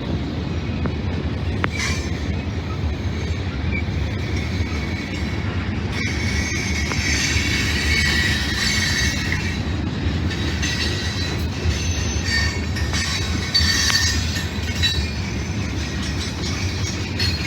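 Train rolling past with a steady low rumble of wheels on rail, joined by high-pitched wheel squeal from about a third of the way in until near the end.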